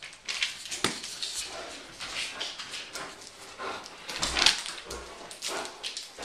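German Shepherd walking across a hardwood floor carrying a heavy newspaper in a plastic wrapper: irregular clicks and knocks of claws and steps, with rustling of the bagged paper. The loudest rustle comes about four and a half seconds in.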